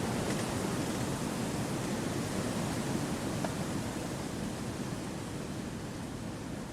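Wind rushing through forest trees: a steady, even rush that eases slightly toward the end.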